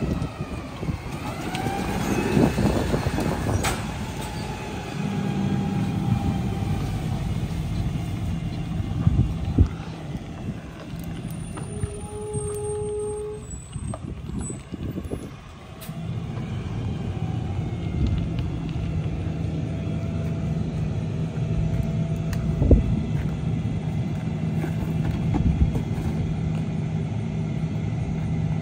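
McNeilus rear-loader garbage truck's CNG engine running: the pitch swings up and down in the first few seconds, then it settles into a steady low idle. There is a sharp clack about four seconds in.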